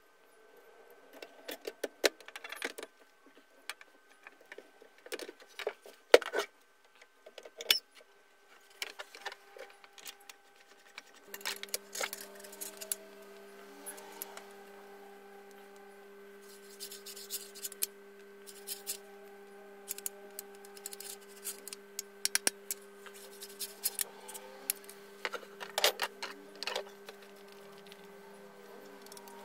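Irregular clicks, taps and metallic clinks as the parts of an electric hand planer are handled and fitted together by hand.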